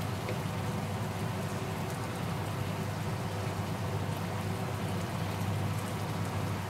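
Ground pork and onion frying steadily in a nonstick pan, a continuous sizzle as the meat cooks in its own released juices while a wooden spatula stirs it.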